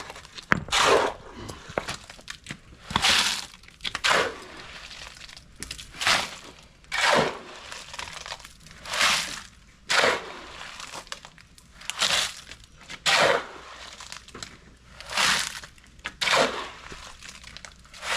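Shovels scraping and scooping through a concrete mix, one scrape after another in a steady working rhythm, roughly two scrapes every three seconds.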